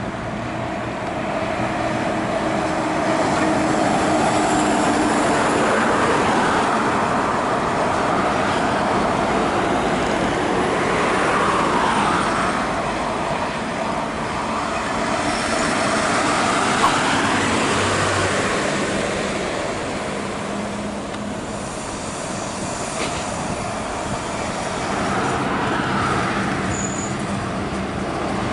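Highway traffic of heavy trucks and cars passing by, tyre and engine noise swelling and fading several times as each vehicle goes past.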